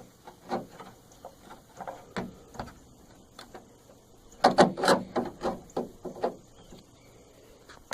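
Irregular clicks and knocks of a door lock cylinder being worked loose from a Ford truck door, with a busier run of rattling about four and a half seconds in.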